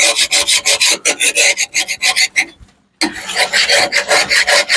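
Rapid back-and-forth hand scraping of caked-on grass and debris off a steel lawnmower blade, about five strokes a second, stopping briefly a little past halfway before starting again.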